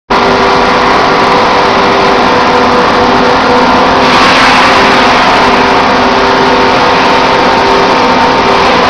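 Industrial handling machinery running in a factory hall: a steady mechanical drone with several held hum tones, turning louder and hissier about four seconds in.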